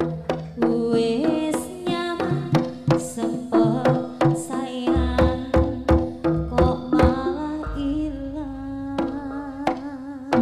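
Live Javanese jaranan gamelan music amplified through a PA: kendang hand drums beat steady strokes under gongs and metallophones, and a female sinden sings into a microphone, her voice wavering on held notes near the end.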